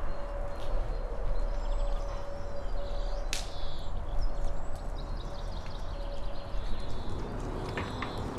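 Outdoor background noise: a steady low rumble of wind on the microphone with faint high chirps, and one quick swish about three seconds in.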